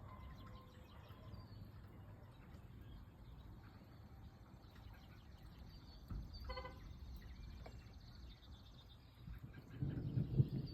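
Birds chirping faintly over a low outdoor rumble, with one short animal call about six and a half seconds in. Near the end a much louder low rumble of thunder sets in from an approaching thunderstorm.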